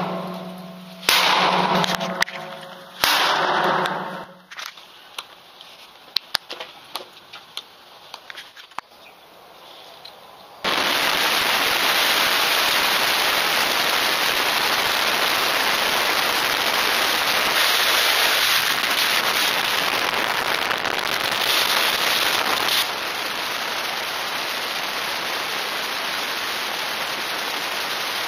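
Three loud bursts with a low steady tone in the first few seconds, then scattered sharp clicks. After that, a loud, steady rush of wind and road noise from a motorcycle on the highway, which drops a step in level near the end.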